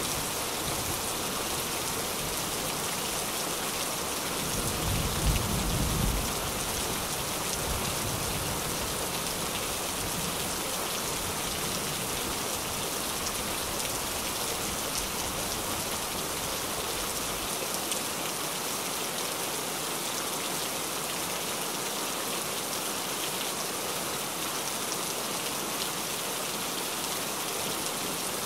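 Steady rain falling on a tin roof, an even hiss with no breaks. A brief low rumble of thunder comes about five seconds in.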